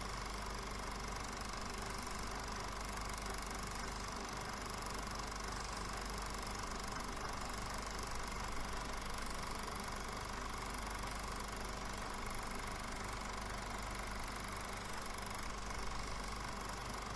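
Cine film projector running steadily, its mechanism giving an even, rapid mechanical whirr over a constant hum.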